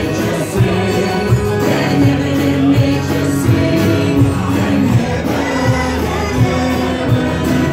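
Church worship music: a band with a steady drum beat and a congregation singing along.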